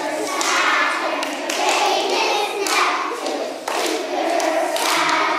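Audience applauding, with children's voices mixed in.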